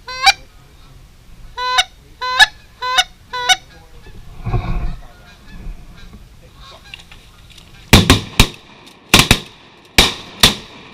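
Canada goose honks, five calls in the first four seconds. Then a volley of about six shotgun shots in quick succession near the end as the hunters fire on the incoming geese.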